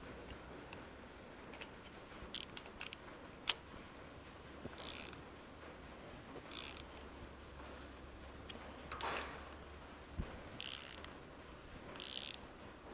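Socket ratchet clicking in short bursts, about five times, with a few single clicks and taps between, as bolts on a tractor's front hub are run in before final tightening.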